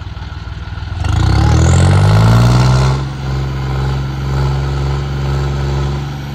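John Deere farm tractor's diesel engine revving up hard about a second in, its pitch climbing, then held at high revs before easing back a little near the three-second mark and running on steadily.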